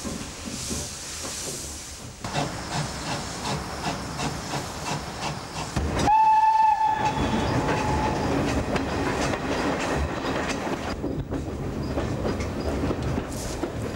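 Peckett industrial steam tank engine hissing steam, then giving one short whistle about six seconds in, lasting about a second. Around the whistle the train moves off with a regular rhythmic clatter.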